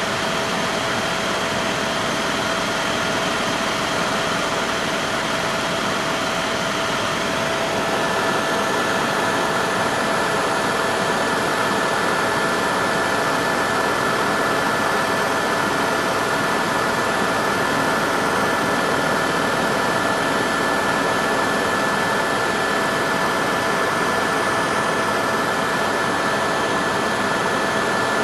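Steady engine and rotor noise inside a helicopter cabin in flight: a dense, loud hiss with a few steady whining tones. About eight seconds in, one tone drops out and a higher one takes over.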